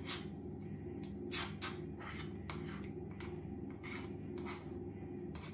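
Plastic spoon scraping and scooping mashed food in a plastic bowl: a string of short scrapes over a steady low hum.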